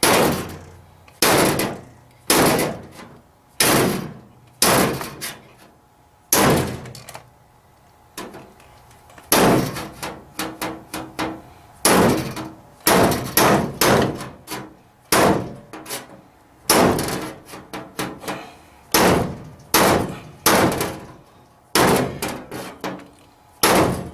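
Hammer blows on the sheet-metal rear quarter panel of a 1972 Ford Custom, struck with a bigger metal hammer to tap a body crease into the panel. Sharp strikes with a short ring, about one a second at first, then in quick runs of several.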